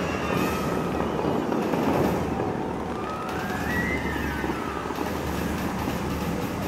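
The Dubai Fountain's water jets shooting up and splashing down, a dense, steady rush of water, with music faint beneath it. Around the middle, a pitched tone rises and then falls.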